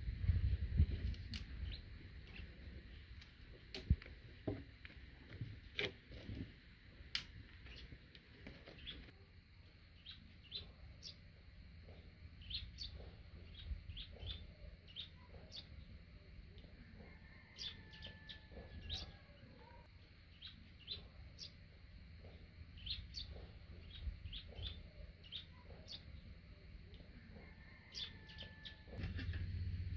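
Small birds chirping repeatedly in short, high notes, with a few brief whistled calls. A low rumble runs under the first several seconds.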